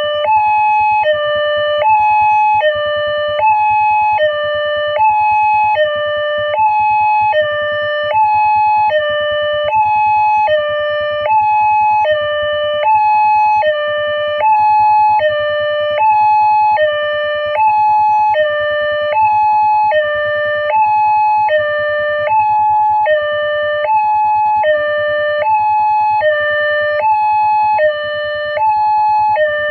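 A railway level-crossing alarm sounding its electronic two-tone signal, alternating high and low at an even pace of about one high-low cycle a second. It warns that a train is about to pass.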